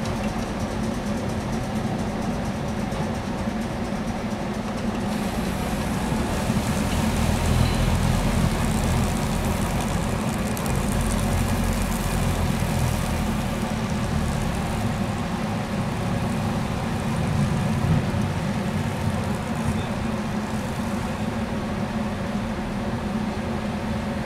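Sapporo streetcar sasara broom car running along the track, its spinning bamboo broom rotor sweeping snow off the rails in a steady whirring, brushing noise. The noise is louder through the middle as the car passes close by, throwing snow.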